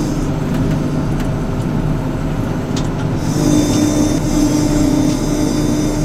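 Case IH Axial-Flow 7088 combine harvester running steadily as it drives along, a constant low engine hum. About three seconds in, a steady high hiss and a higher hum join it.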